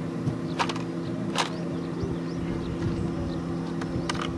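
A steady low hum from a running motor, with a few sharp clicks: about half a second in, about a second and a half in, and again near the end.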